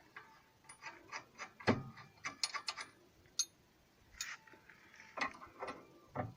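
Irregular metallic clicks and knocks of washers, nuts and a wrench as nuts are run onto the studs of anti-roll-bar links and tightened.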